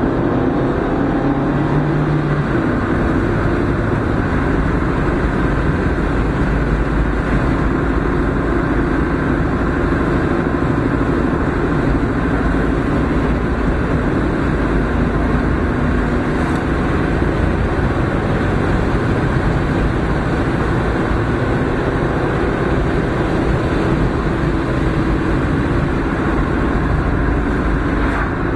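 Steady drone of a car driving at road speed, heard inside the cabin: engine and tyre noise.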